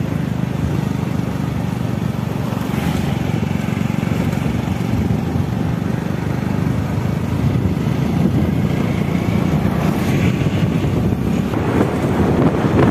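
Motorcycle engine running steadily while riding, with road and wind noise. Wind rushing over the microphone grows louder near the end.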